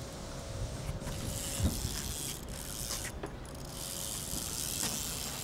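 Fishing reel being cranked, its gears whirring as line is wound in, in two spells with a short pause about three seconds in.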